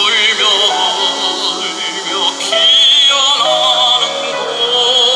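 Tenor singing a Korean art song with wide vibrato over grand piano accompaniment; the voice is amplified through a handheld microphone.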